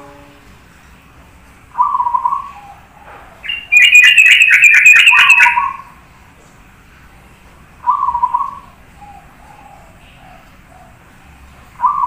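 Caged zebra dove (perkutut) cooing in short phrases every few seconds. About three and a half seconds in comes a much louder, rapid run of higher notes lasting some two seconds.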